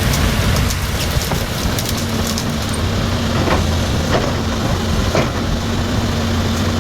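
Caterpillar 329D2L tracked excavator's diesel engine running steadily, with a few short knocks in the second half.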